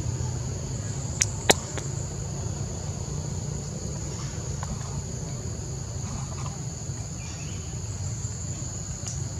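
Steady high-pitched drone of insects over a low steady rumble, with two sharp clicks about a second and a half in and a fainter one near the end.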